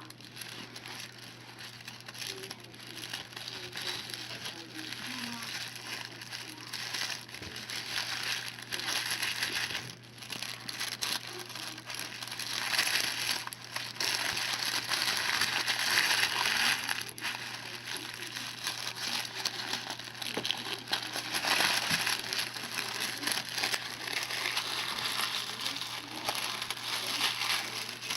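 Cut layers of a tablecloth crinkling as they are gathered and scrunched by hand into a flower, the rustling growing louder in a few stretches. A faint steady low hum lies underneath.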